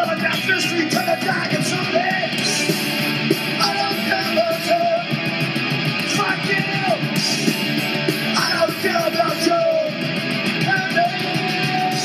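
Punk rock song with shouted vocals over guitars and fast drums.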